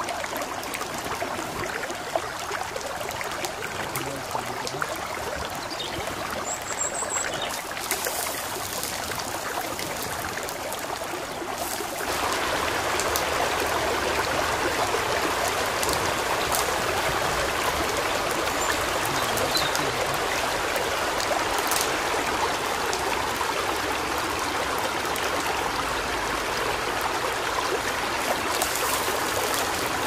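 Stream water rushing steadily, stepping up louder about twelve seconds in, with a few faint clicks over it.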